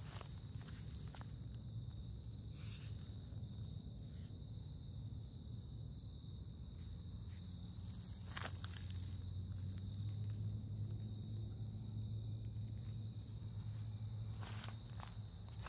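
Steady high-pitched chorus of insects, with a few crunches of footsteps on dry leaf litter, one about halfway through and a cluster near the end.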